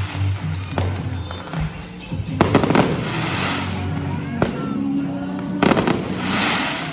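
Aerial fireworks going off: two volleys of sharp bangs, about two and a half seconds in and again near six seconds, each followed by a crackling, fizzing tail. Music plays throughout.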